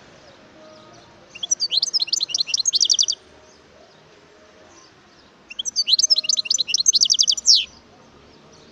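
European goldfinch singing: two phrases of rapid, high twittering notes, each about two seconds long, with a pause of about two seconds between them.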